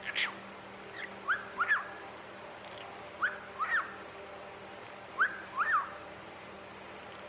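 Pet cockatiel whistling short phrases of quick rising-and-falling notes, the phrase repeated three times about two seconds apart, over a faint steady hum.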